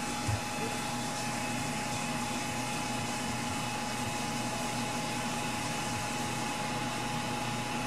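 Ender 3 Pro 3D printer's small cooling fans whirring steadily, with a thin steady whine over the hum.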